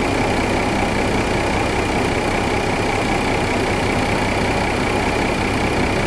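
2014 Mercedes-Benz C300 engine idling steadily, with its bank-two exhaust cam back in time.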